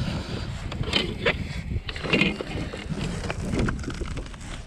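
Wind rumbling on the microphone, with a few short knocks and rustles of a fish and gear being handled in a small boat.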